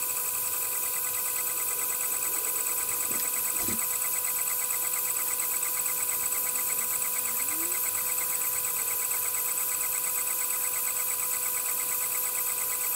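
Gantry laser engraver running as its head travels over the wood: a steady whine from the motors in several fixed tones, over the hiss of the laser module's cooling fan.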